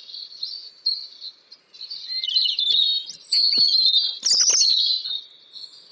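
European robin singing: high, thin warbling phrases of quickly changing notes, a few short ones at first, then after a brief pause a longer, denser run.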